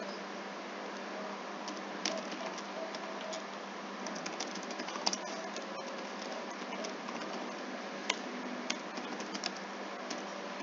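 Typing on a computer keyboard: irregular key clicks in short runs, over a steady background hiss.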